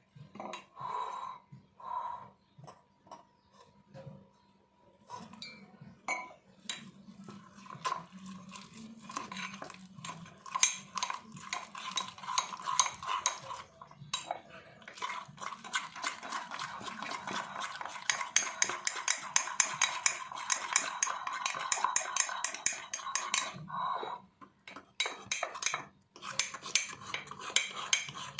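A metal spoon stirring batter in a mug, with scattered taps at first, then fast continuous clinking against the mug's sides. A short pause comes near the end before the stirring starts again.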